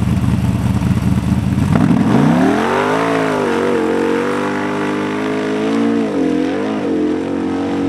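Formula offroad buggy's engine at full throttle as it launches on paddle tyres in loose sand. About two seconds in, the revs climb steeply, then stay high and waver, with a brief dip near the end as the wheels spin and throw sand.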